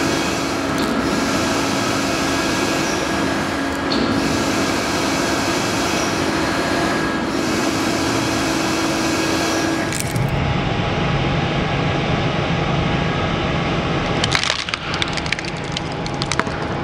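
A hydraulic press running with a steady hum, through several abrupt cuts. Near the end comes a run of sharp cracking and crunching as the ram crushes a die-cast toy car model.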